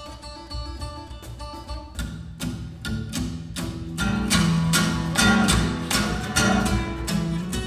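Acoustic guitar playing an instrumental passage of a song: quiet picked notes at first, then strummed chords from about two seconds in, louder from about four seconds on.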